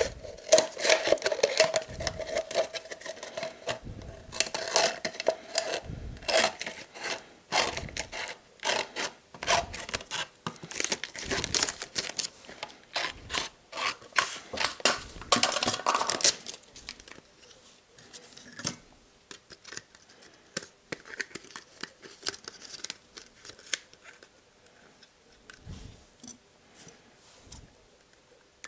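A thin plastic bottle being cut and handled: dense crackling and snipping for about the first sixteen seconds, then fewer, quieter clicks and crinkles.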